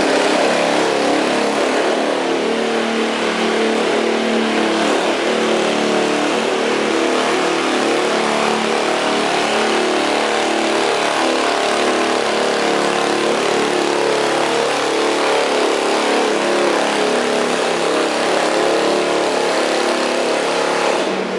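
Riding lawn mower engine running steadily at high throttle under load, pulling a weight sled down the track.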